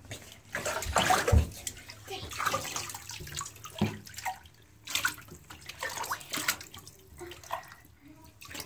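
Shallow bathwater in a bathtub sloshing and splashing irregularly as a hand and feet move through it, with a couple of dull knocks about a second in.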